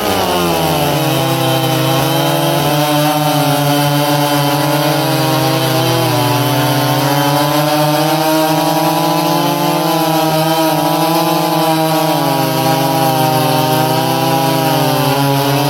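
Two two-stroke chainsaws, a Stihl 026 and a Jonsered 2165, cutting wood together at full throttle. Their engine pitch drops as the chains bite in, then holds high, sagging and recovering slightly as they work through the cut.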